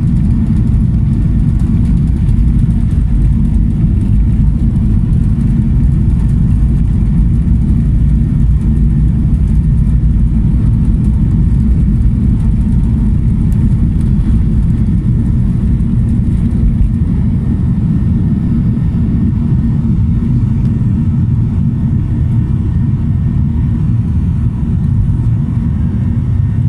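Jet airliner engines heard from inside the passenger cabin: a loud, steady, deep rumble with a faint thin whine above it. The very deepest part of the rumble eases slightly about two thirds of the way through.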